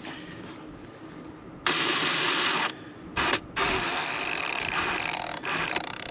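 Cordless drill run in short bursts, spinning a wooden piece held in its chuck as a makeshift lathe. A burst of about a second starts a little under two seconds in, then a short blip, a longer run of nearly two seconds, and a few brief bursts near the end.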